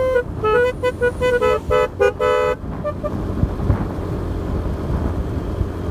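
Basuri telolet melody horn playing a quick tune of short, changing notes, which stops about two and a half seconds in, leaving a steady rushing noise.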